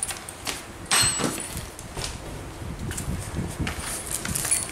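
Handling noises as a brush cutter's aluminium drive shaft is picked up and moved about on cardboard, with a sharp knock about a second in and smaller scrapes and taps after.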